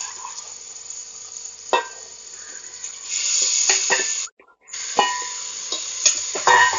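Marinated chicken pieces sizzling as they go into hot oil in a pressure cooker, with clinks and scrapes of steel tongs against the pot and bowl. The sizzle grows louder about three seconds in and cuts out briefly a little after four seconds.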